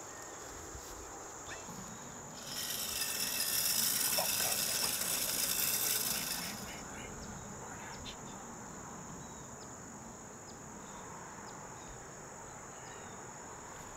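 Steady high-pitched drone of crickets and other insects in the grass, with a louder rasping buzz lasting about four seconds that starts a couple of seconds in and then stops.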